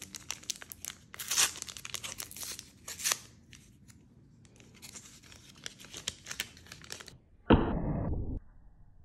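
A foil sticker pack being torn open and crinkled in the hands, with irregular crackles and rips, the loudest about a second and a half in and again about three seconds in. About seven and a half seconds in, a short, louder sound lasting under a second.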